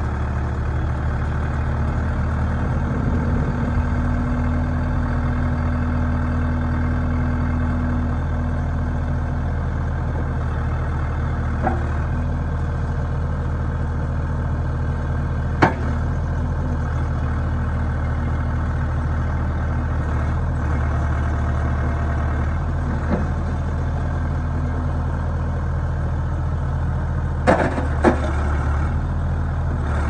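1997 New Holland 555E backhoe loader's four-cylinder diesel engine running steadily while the loader arms raise and lower the front bucket. A few sharp knocks are heard, two of them close together near the end.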